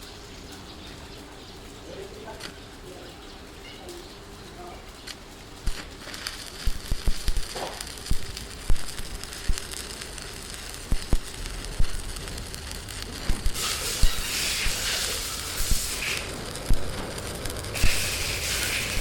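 Faint bird calls, then irregular crackling with sharp pops starting about a third of the way in. About two-thirds in, a steady high hiss joins the crackling.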